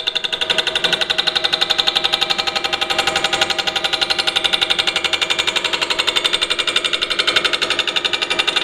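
Shop-made 8 1/4-inch fly cutter on a milling machine taking a facing cut across the separate port flanges of a cast-iron Dodge Cummins exhaust manifold. The interrupted cut gives a rapid, even hammering, with a steady ringing above it.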